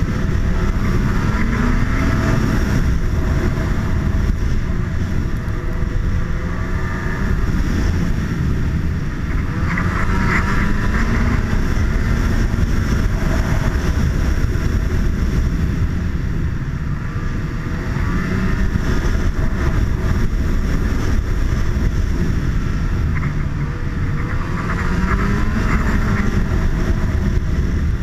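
Snowmobile engine running under way, its pitch rising and falling about four times as the throttle is opened and eased, over a constant rumble.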